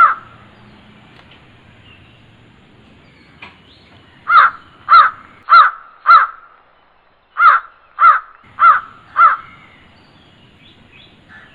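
Crow cawing: one caw at the start, then two runs of four harsh caws a little over half a second apart, with a short pause between the runs.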